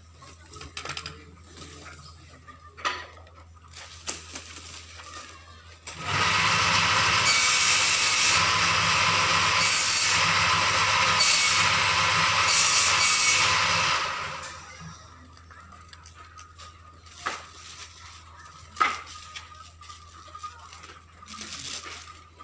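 An electric power tool starts suddenly, runs steadily for about eight seconds and then winds down. Light knocks and clicks come before and after it.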